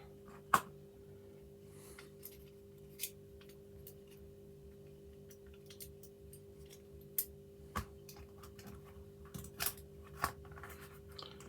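Metal parts of a sash lock clicking and clinking as they are handled and set down during disassembly: scattered sharp clicks, the loudest about half a second in, over a steady background hum.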